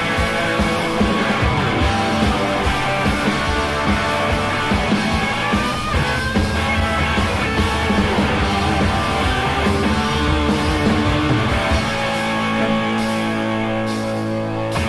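Rock band playing, with guitars over a steady drum beat. About twelve seconds in, the drum beat drops out and held guitar chords ring on.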